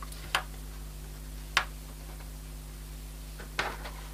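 Small fibreglass circuit board being handled and set down on a cutting mat: three short, sharp clicks and taps, the last near the end a quick cluster, over a steady low hum.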